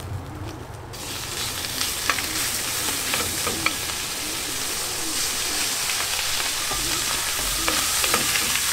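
Raw minced meat hitting a hot stainless-steel frying pan and searing. A loud sizzle sets in about a second in and then holds steady, with a wooden spoon clicking and scraping in the pan as the meat is broken up.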